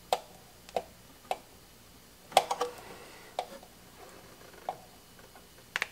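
Sharp little clicks and taps of wire leads and parts being handled inside a metal radio chassis, about seven at uneven spacing, the loudest a quick cluster about two and a half seconds in.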